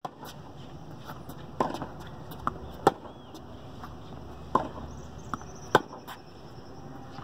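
Tennis rally on a hard court: a tennis ball struck back and forth by rackets and bouncing on the court, heard as a series of sharp pops about a second apart, the two loudest near the middle and near the end.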